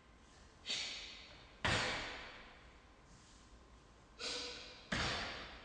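A child's karate techniques in a kata, sounding as four sharp hits in two pairs about a second apart, each echoing in a large hall. Likely the uniform snapping and a forceful breath or foot landing with each block and punch.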